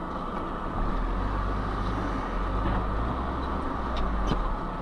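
Steady engine and tyre noise inside a moving car on a wet road, with a low rumble that swells about a second in and eases off near the end, and a few faint knocks near the end.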